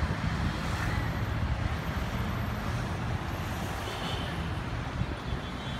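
Steady road traffic noise: an even rumble of passing cars with no single event standing out.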